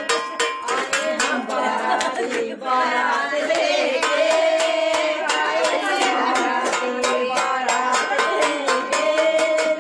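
Women singing a Rajasthani wedding folk song, with a steady beat struck on a metal plate (thali) used as a percussion instrument.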